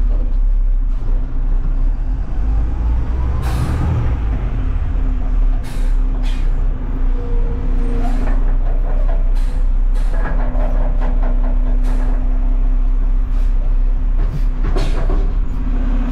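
Front-loader garbage truck's diesel engine running steadily with a constant hum. A few short, sharp bursts of noise cut through it: a few seconds in, around the middle, and near the end.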